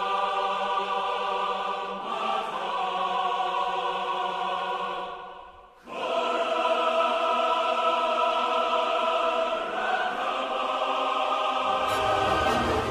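Dramatic background music of long held chords, fading away briefly near the middle and swelling back, with a deep bass coming in near the end.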